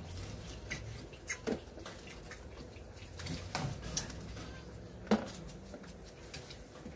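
White-tailed deer fawns sucking on milk bottles held in a wooden bottle rack, with scattered clicks and knocks as plastic bottles are handled and bump the rack. The sharpest knock comes about five seconds in.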